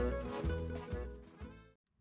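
Instrumental background music with a steady beat, fading out and stopping shortly before the end.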